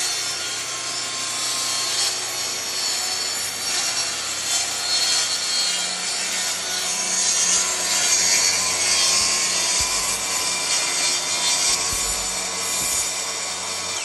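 Power saw running and cutting into an engineered hardwood floor board, a steady motor whine over the noise of the blade in the wood.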